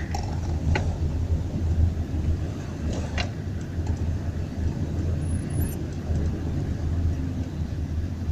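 Inside a Daewoo Nexia car's cabin in slow traffic: a steady low drone of the car's engine and the surrounding traffic, with a few faint clicks about one and three seconds in.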